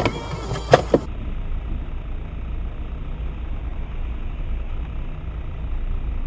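Two sharp knocks in the first second, then the steady low rumble of a car under way, its engine and road noise picked up by a dashcam inside the car.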